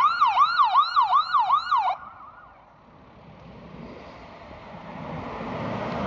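Electronic yelping alert tone, rapid falling-and-rising sweeps about four times a second, stopping after about two seconds. A heavy vehicle's engine rumble then builds, growing louder toward the end.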